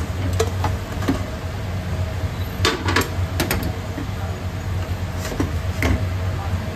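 A conveyor pizza oven runs with a steady low hum. A metal pizza pan is spun and knocked about on a metal pizza peel to turn the pizza out, giving a string of sharp metal clanks and scrapes.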